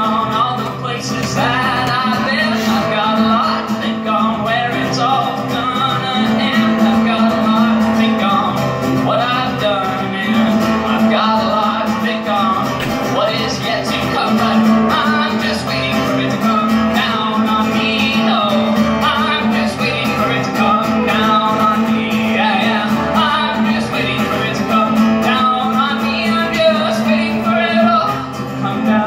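A man singing while playing an acoustic guitar, a live solo performance.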